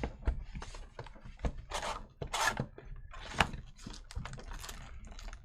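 A sports card hobby box and its card packs being handled and opened by hand: a run of sharp clicks and short rustling, crinkling noises, thickest a couple of seconds in.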